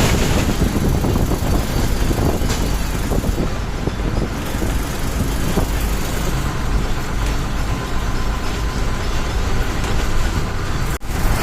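Bus travelling at speed on a highway: steady engine, tyre and wind noise, with an instant's dropout near the end.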